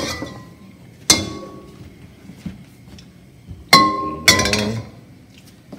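Stainless steel wok knocking against the gas stove's grate as it is tilted and swirled to spread the oil: three sharp metallic clanks, one about a second in and two close together near the four-second mark, each ringing briefly.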